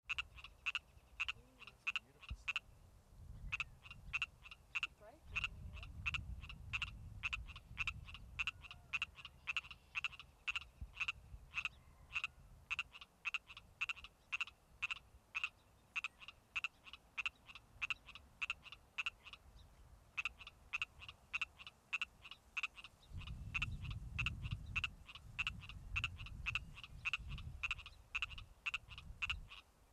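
Male Pacific tree frog giving its mating advertisement call: a fast train of short, high croaks, about three a second, broken by a couple of brief pauses. A low rumble comes and goes underneath.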